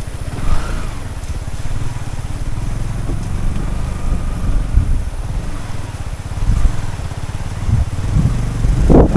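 Motorcycle engine running at low road speed, its low firing pulses steady throughout. Wind buffets the microphone in loud gusts near the end.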